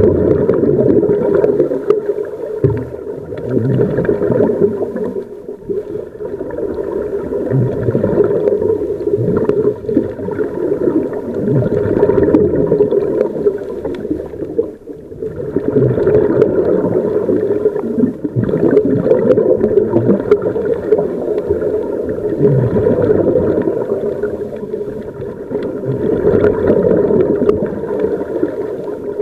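Scuba regulator breathing underwater, heard muffled through a camera's waterproof housing: gurgling bubble bursts from exhalations that swell and fade every few seconds.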